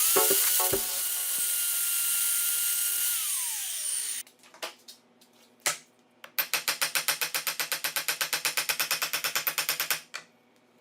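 Angle grinder motor running at full speed with a steady high whine, then switched off and winding down, its pitch falling over about a second. After a short pause a fast, even rattling of about eight pulses a second runs for about three and a half seconds and stops abruptly.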